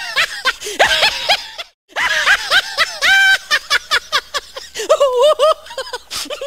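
High-pitched comic laughter sound effect: a quick string of short laughing notes that pauses briefly about two seconds in, then goes on.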